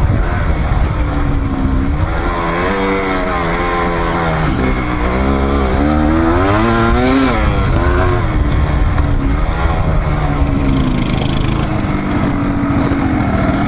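Single-cylinder dual-sport motorcycle engine running under load on a trail. Its pitch rises and falls repeatedly as the throttle is opened and closed, most around the middle, then runs steadier toward the end.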